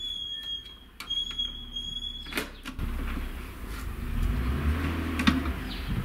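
Whole fish being laid on the perforated metal grate of a smoker made from a medical sterilizer drum, with scattered clinks and handling noise over wind rumbling on the microphone. The sharpest clink comes near the end. A steady high whistle-like tone sounds through the first two seconds, breaking briefly about a second in.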